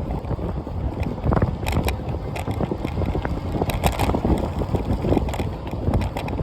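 Wind rushing over the phone's microphone, a steady low rumble, with scattered knocks and rattles throughout.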